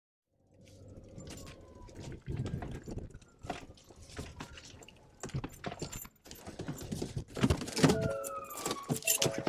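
After a brief silence, a jumble of knocks, rustles and jangling from a deputy's gear handled against a body-worn camera as he moves about in the driver's seat of a patrol car, with the loudest knocks near the end.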